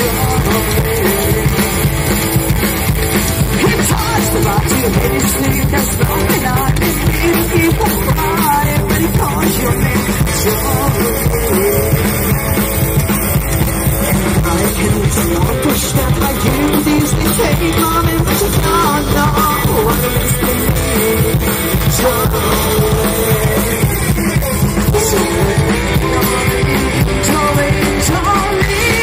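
Live rock'n'roll band playing loudly: upright bass, electric guitar and drum kit through stage amplifiers.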